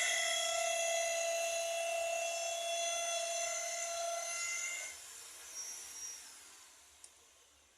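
Old electric pump motor, fitted with new bearings and a water seal, running with a steady high whine that fades away about five seconds in. A faint tick near the end.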